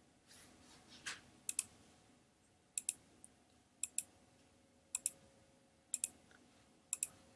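Computer mouse button clicked repeatedly, quietly: seven short sharp clicks, most of them quick pairs, about one a second.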